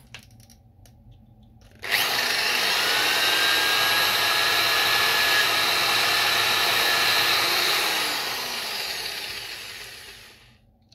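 Electric drill with a twist bit boring through a plastic car-key shell: it starts about two seconds in, runs steadily, then dies away near the end.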